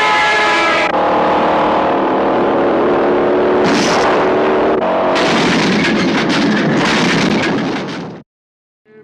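Car chase: car engines revving hard and tyres squealing, with a run of knocks and crashes in the second half. The sound fades and cuts out abruptly near the end.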